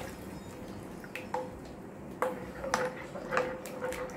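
A metal spoon clinking against a metal vessel while a spinach purée is added to a white sauce and stirred in: several light, irregular clinks, most of them in the second half.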